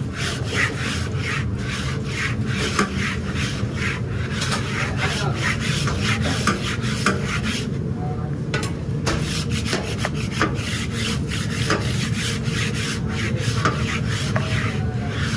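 A grill brick on a handle scrubbed back and forth across a steel flat-top griddle, a rough rasping scrape about two to three strokes a second, with a short pause about halfway through.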